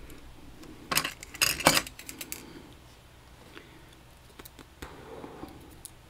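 A burst of sharp metallic clicks and clatter about a second in, then scattered faint ticks: small metal lock parts and tools handled while a picked Vachette VIP lock cylinder is taken apart.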